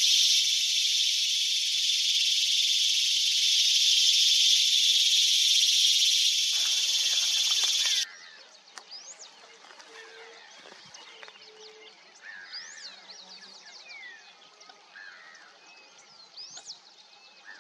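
A loud, steady, high-pitched drone cuts off suddenly about eight seconds in. After it comes a much quieter lakeshore chorus of waterbirds: many short whistled calls that rise and fall, and a few brief low notes.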